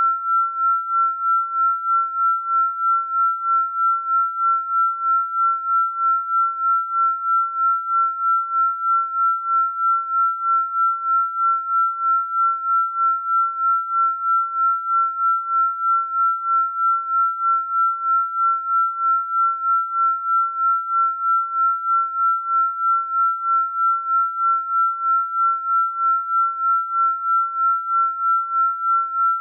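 Electronically generated pure sine tone for frequency-healing listening: one high pitch held steady, pulsing in loudness about three times a second.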